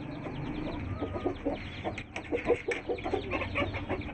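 Young chicks peeping rapidly and continuously in high, falling chirps, with a hen clucking in short low notes from about a second in.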